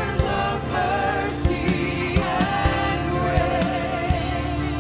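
Gospel song performed live: a lead singer and choir sing over a band, with a steady drum beat.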